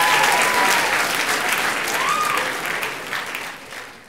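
School assembly audience applauding, dying away over the last second or so.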